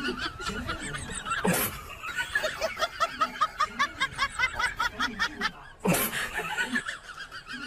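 A person laughing in a rapid string of high-pitched bursts, about four or five a second, broken twice by short sharp sounds.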